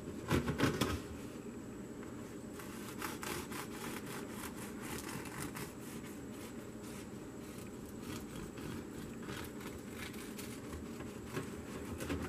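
Knife sawing back and forth through a warm loaf of bread, a steady soft rasping of the blade through crust and crumb. A few louder knocks come about half a second in.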